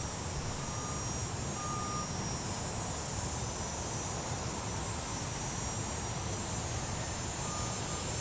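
Steady outdoor background noise, a low rumble and hiss like distant traffic, with a few short high beeps about one and two seconds in and again near the end.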